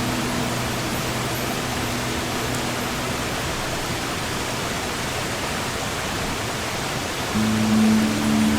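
Steady wash of sea surf with a slow acoustic guitar over it: low notes ring on and die away by about three and a half seconds in, and a new chord is struck about seven and a half seconds in.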